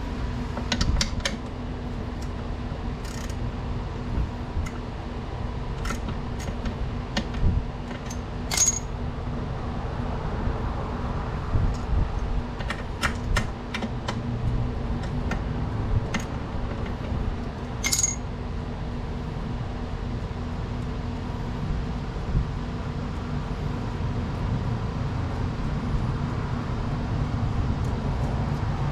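Metal hand tools clinking and knocking against bolts and metal parts while they are undone. The sharp clicks and taps are scattered, some in quick little clusters, with two ringing metallic strikes, one about a third of the way in and one about two-thirds in, over a steady low hum.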